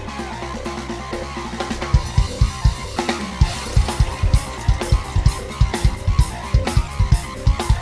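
Live rock band playing an instrumental: sustained synthesizer and bass, then a full drum kit comes in about two seconds in with a steady driving beat, guitar over it.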